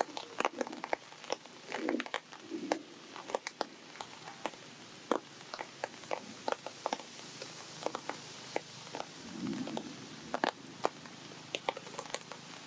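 Irregular sharp clicks and crackles, scattered throughout, with a few brief soft rustling sounds.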